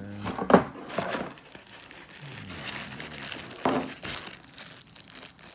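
Packaging crinkling as faucet parts are handled and unwrapped, with sharper crackles about half a second in and again about three and a half seconds in.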